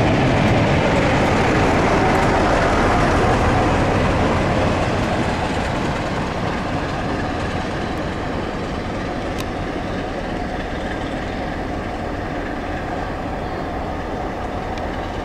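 A passenger train's coaches running past on the rails, loudest for the first four or five seconds, then fading as the tail of the train, with a diesel locomotive on the rear, draws away.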